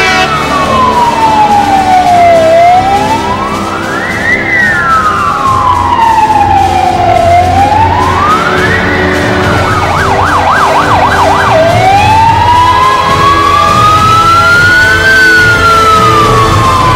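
Fire engine's electronic siren wailing in slow rising and falling sweeps as the truck passes, switching to a fast yelp for about a second and a half some ten seconds in, then back to a slower wail, over the low rumble of the truck.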